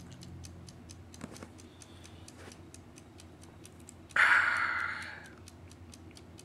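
A steady ticking, a few ticks a second. About four seconds in, a loud breathy 'ahh' exhale from a man who has just taken a long drink from a can, fading over about a second.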